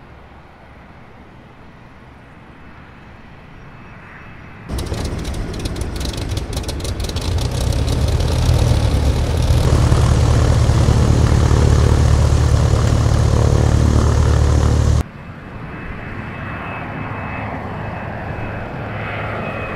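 Twin propeller aircraft engines running: quieter at first, then suddenly loud and close about five seconds in with a rapid propeller beat, and cutting back to a quieter, more distant engine sound about fifteen seconds in.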